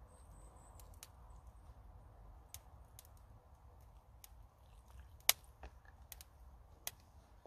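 Light scattered clicks and taps of a metal spoon against a wooden bowl while stirring bannock mix of flour and water, with one sharper knock about five seconds in.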